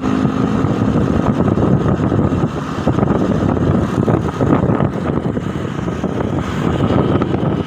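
A moving vehicle's engine and road noise with wind buffeting the microphone, steady throughout; no telolet horn tune is heard.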